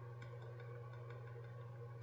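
Quiet room tone: a steady low electrical hum, with a couple of faint ticks near the start.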